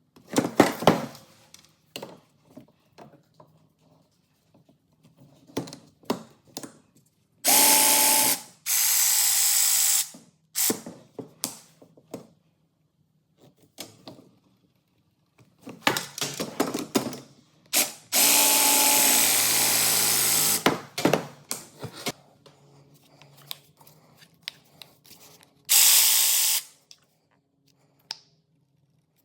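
REMS electric copper tube bender's motor running in four bursts, each from under a second to about three seconds long, with a steady whine. Clicks and clatter of the tool and tubing come between the runs.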